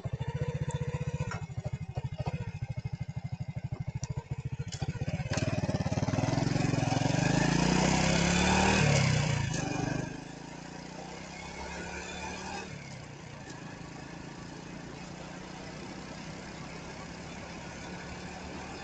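A vehicle engine chugging with a fast even beat, then revving up loudly for a few seconds, its pitch rising and falling, before dropping back to a steady, quieter drone about ten seconds in.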